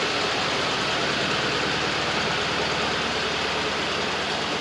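BMW E70 X5M's twin-turbo V8 engine running steadily, as a continuous, even engine and road noise.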